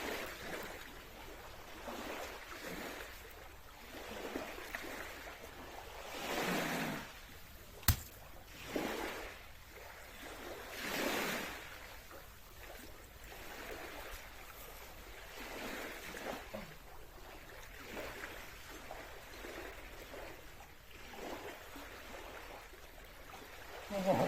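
A person breathing hard during exercise, in irregular heavy exhalations a second or two apart. A single sharp click comes about eight seconds in.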